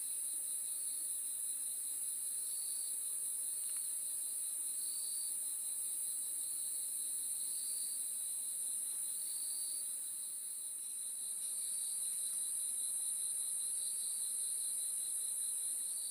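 Feeder crickets chirping: a steady high-pitched trill with shorter chirps repeating every second or two beneath it.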